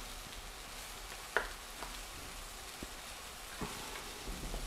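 Curry simmering in a pan, a faint steady sizzle, with a few light taps as a spoon stirs it.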